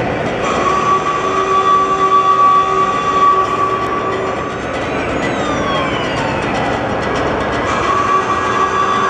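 Arena concert sound through the PA: a loud rumbling, train-like noise with two steady held tones that drop out for a few seconds, and falling glides in pitch about five seconds in.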